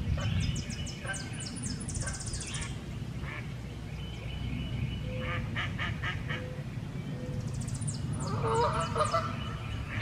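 Geese honking: a run of calls around the middle and a louder burst near the end, as the group chases one goose away. Thin high chirps of small birds in the first couple of seconds, over a steady low rumble.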